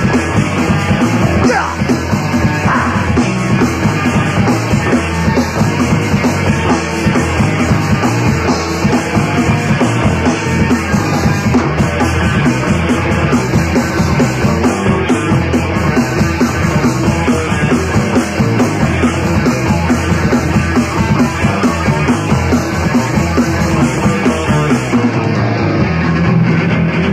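Loud punk rock played live by a band, an instrumental stretch between sung lines with no vocals.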